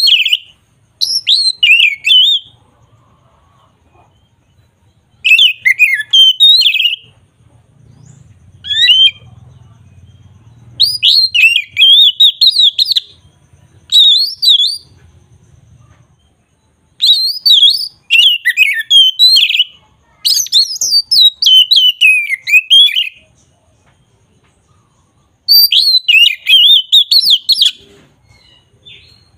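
A bird singing in repeated bursts of fast, high chirps, each phrase a second or two long, with short pauses between phrases.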